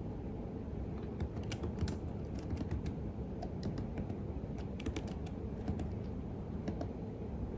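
Computer keyboard being typed on: irregular runs of keystroke clicks begin about a second in and stop shortly before the end. A steady low rumble continues underneath.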